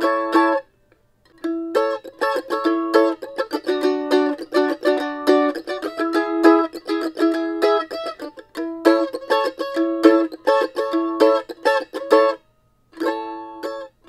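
Eastman MD615 F-style mandolin being picked. A ringing chord cuts off just after the start, and after a short pause a long run of fast picked notes and double stops follows. The run breaks off near the end, and a brief flurry of notes closes it.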